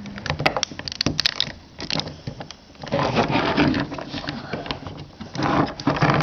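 Hard plastic Transformers toy pieces being handled as a small figure's foot pegs are fitted into a hollow on the toy vehicle's roof: a few sharp clicks in the first couple of seconds, then longer stretches of scraping and rubbing.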